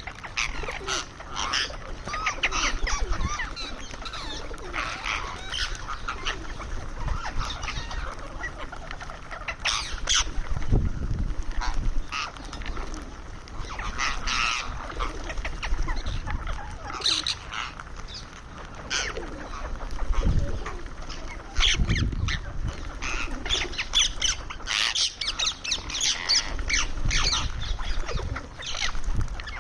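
Indian ringneck parakeet giving short, sharp squawks and chattering calls in irregular runs, with occasional low thumps.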